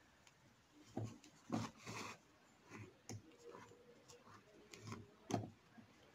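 Hand embroidery: a needle and thread are drawn through canvas stretched in a wooden hoop, making faint, irregular scratching and rubbing strokes with a few soft ticks.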